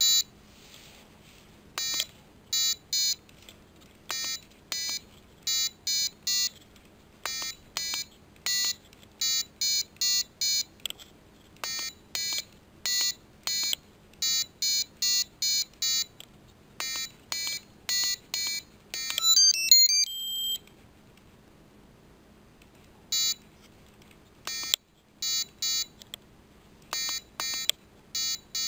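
Piezo buzzer of a SparkFun Inventor's Kit Simon Says game sounding short electronic beeps, a different pitch for each coloured LED and button, played in runs as the light sequence is shown and repeated. Near the middle comes a quick warbling run of rising and falling tones ending on one held tone, followed by a short pause before the beeps start again.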